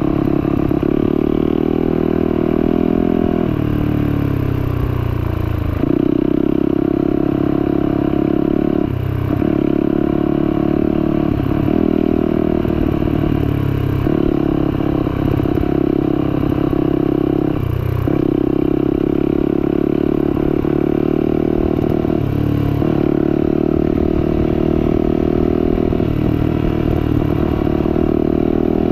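Turbocharged Yamaha YZ450F's single-cylinder four-stroke engine running under load. Its note drops and picks up again several times as the throttle is eased off and reopened, over gravel crunching under the tyres.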